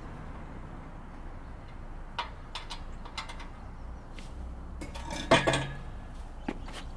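Sharp metal-on-metal clinks and clanks from tools and parts being handled, a few scattered taps, then a louder cluster of clanks about five seconds in.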